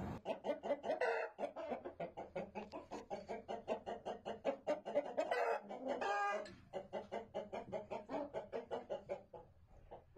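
Shamo-type gamefowl clucking in a fast, steady run of about four to five clucks a second, broken by two longer, louder calls about a second in and around six seconds in. The clucking fades out near the end.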